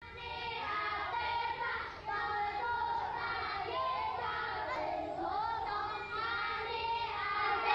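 A high voice singing a wavering melody unaccompanied, over a steady low background hiss.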